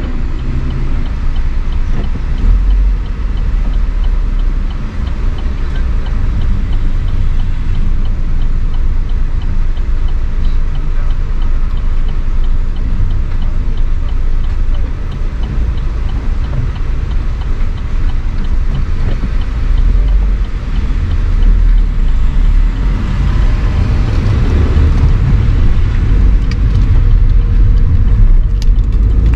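Steady low rumble of car traffic on city streets, engine and road noise, growing a little louder in the last several seconds.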